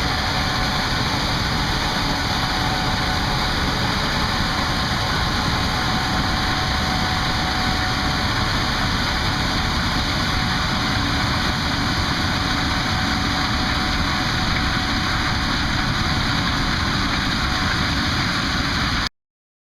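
Gleaner S78 combine running steadily while harvesting corn with its eight-row corn head: a loud, even machine noise with a steady whine riding on it. It cuts off suddenly near the end.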